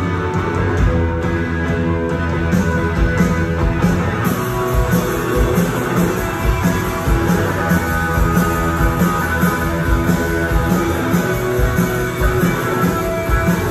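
Rock band playing live: electric guitars over drums that keep a steady beat.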